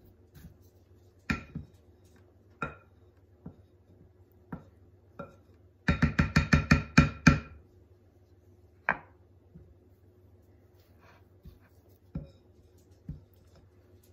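Wooden spoon and silicone spatula knocking and scraping against a ceramic mixing bowl to clear off sticky dough. Scattered single knocks, then about six seconds in a quick run of about ten taps with a ringing note.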